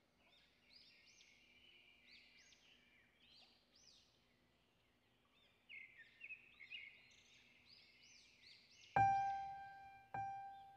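Small birds chirping in quick, high, rising-and-falling calls, with a soft piano striking two notes near the end.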